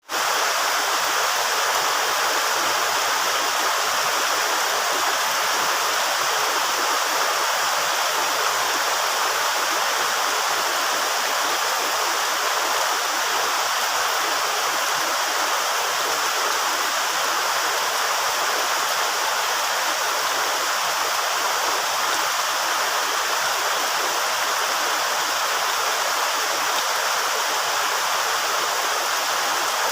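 Steady rain falling, an even dense hiss that holds at one level throughout.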